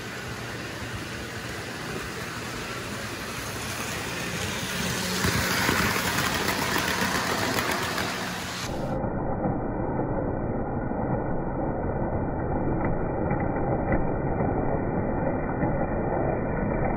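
HO-scale Märklin model train running along the track, a steady mechanical rumble of motor and wheels that swells for a few seconds and turns duller about halfway through, with a few light clicks near the end.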